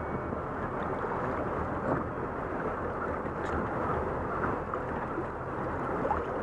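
Wind buffeting the microphone and water sloshing against a small boat's hull, steady throughout, over a low steady hum.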